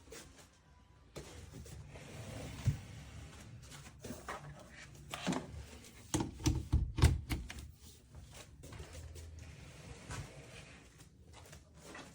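Knocks and thuds of things being handled in a small room, with a cluster of thumps about six to seven and a half seconds in.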